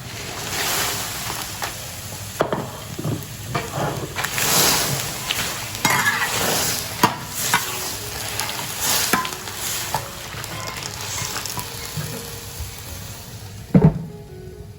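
Spatula stirring and scraping in a hot wok, with sizzling and frequent sharp knocks of metal on the pan; the loudest knock comes near the end.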